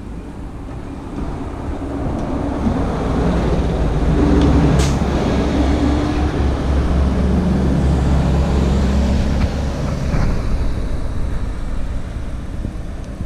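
Bus driving past on the road, its engine hum building over the first few seconds, staying loud, then easing off after about ten seconds.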